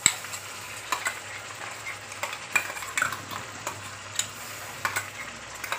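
Chopped onions sizzling in hot mustard oil in a metal kadai as ginger-garlic-chilli paste is scraped in from a steel container. Irregular sharp metal clicks and scrapes come every half second or so.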